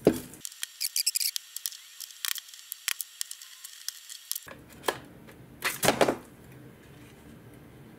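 A metal scraper blade prying and scraping at a plastic 3D-printed mould to free a forged carbon fibre part: a quick run of small clicks, taps and scrapes, then a louder scrape about six seconds in.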